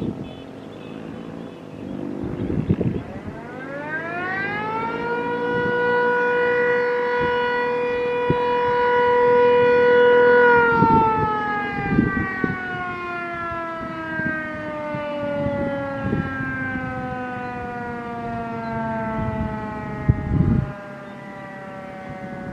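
A motor-driven siren winding up over about two seconds, holding one steady wail for about six seconds, then slowly winding down, its pitch still falling at the end. Scattered knocks and thumps sound throughout.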